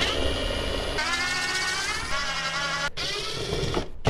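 Small cordless power driver whining as it spins out the 7mm screws holding a truck door panel, its pitch shifting and rising as the motor runs, with a brief stop about three seconds in before it runs again.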